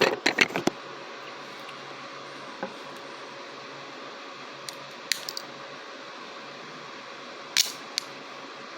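Switchblade knife being picked up and handled: a quick cluster of clicks and taps at the start, then a few light clicks scattered through, the loudest pair near the end, over steady room hum.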